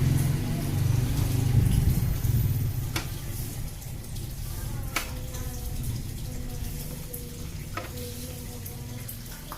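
Three sharp metal clicks a couple of seconds apart, from tools working loose a motorcycle seat, over a low rumble that fades over the first few seconds.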